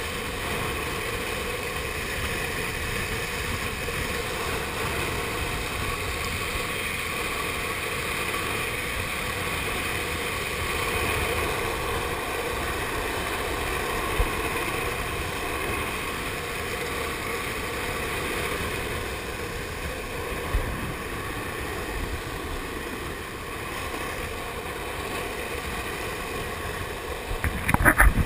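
Skateboard wheels rolling fast on asphalt with wind rushing over the microphone: a steady roar through a downhill speed run. A short cluster of loud knocks comes near the end.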